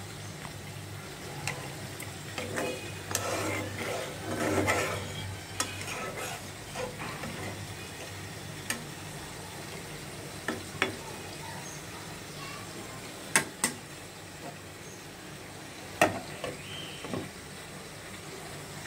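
Metal spatula stirring and scraping a chicken and potato curry in a non-stick frying pan, mostly in the first few seconds, then a few sharp taps of the spatula against the pan, over the curry's steady low sizzle.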